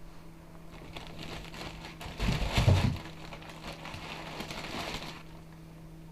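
Crinkling and rustling of fuel briquettes and their paper or wrapping being handled and loaded into a small stove to light it, with a heavier thump about two to three seconds in.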